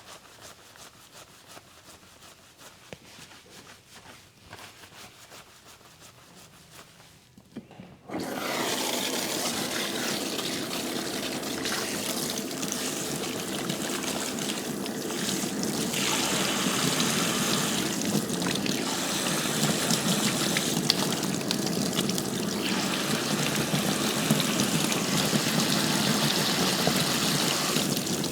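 Faint handling ticks, then about eight seconds in running water starts suddenly and keeps running steadily, a little louder later on.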